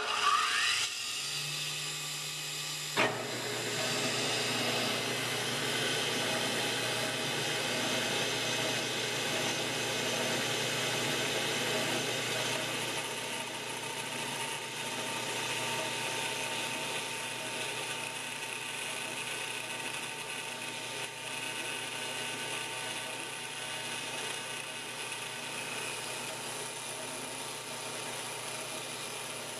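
Atlas 10-450 tool post grinder switched on, its motor spinning up with a rising whine, then a sharp click about three seconds in. The grinder then runs steadily, with the lathe turning, while its small wheel grinds the inside of a steel MT5-to-5C collet adapter's bore on a one-thousandth-inch pass.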